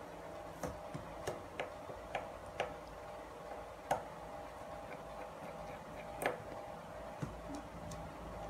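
Small screwdriver working the tiny screws out of a Nokia 6600F's plastic housing: a series of sharp, irregularly spaced clicks and taps, the loudest about four and six seconds in.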